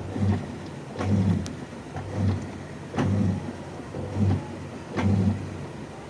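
Top-load automatic washing machine's motor running in short pulses about once a second, each starting with a click and followed by a low hum, as the machine works through its cycle.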